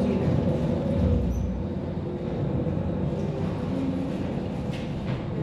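Low, steady mechanical rumble of a car vending machine's lift bringing a car down the tower, with a deeper swell about a second in.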